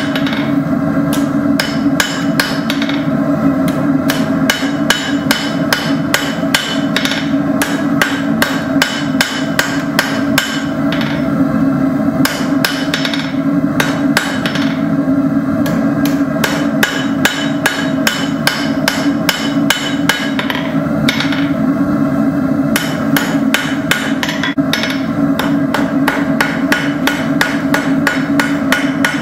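Blacksmith's hammer striking hot steel rod on an anvil in a steady run of rapid blows, knocking down the edges of the piece, over a steady hum.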